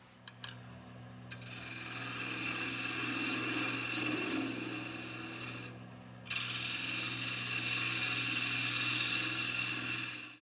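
Wood lathe motor humming steadily while a tool works the spinning maple lid, smoothing it, with a dense scraping hiss. The cutting stops for a moment about six seconds in, then resumes and cuts off suddenly near the end.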